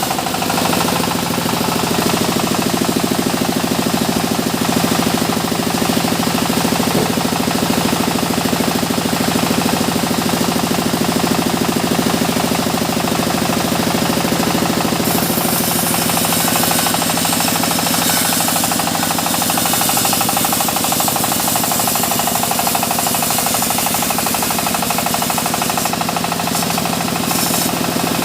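Sawmill machinery running steadily, with an engine knocking rapidly and evenly. From about halfway through until near the end, a harsher high hiss joins in, fitting the saw blade cutting through mahogany.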